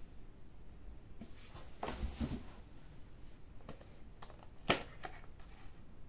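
A full-face motorcycle helmet is handled and pushed into place on the head. There is scratchy rustling of shell, padding and hands about two seconds in, and a single sharp click about three-quarters of the way through.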